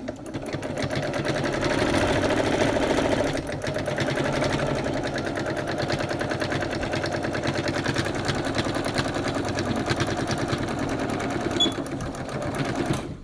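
Electric sewing machine running at a steady speed, its needle stitching in a fast even rhythm while top-stitching along a fabric edge. It builds up over the first couple of seconds, eases briefly a few seconds in, and stops near the end.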